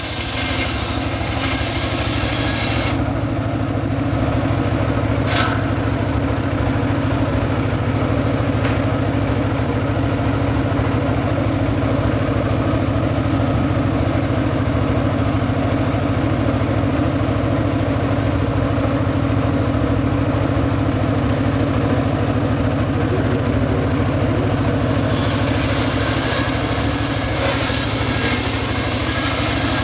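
Homemade engine-driven circular sawmill running steadily under load while its large blade saws sengon logs into beams. The blade's hiss through the wood is strongest at the start and again near the end, with one short click a few seconds in.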